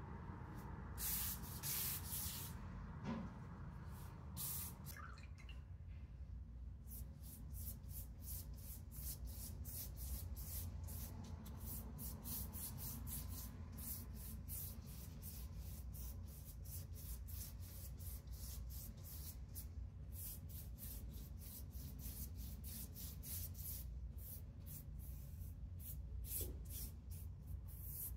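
Filo pastry sheets rustling as they are handled and laid down, then a pastry brush swishing melted butter over the filo in quick, repeated strokes.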